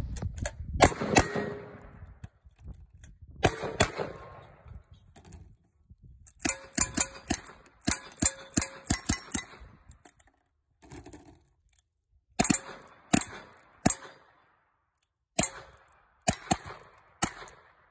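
A string of gunshots from a shooter working through shotgun, rifle and revolver: a couple of shots about a second in and one near four seconds, then a fast run of about ten rifle shots, then single revolver shots, roughly one a second, near the end.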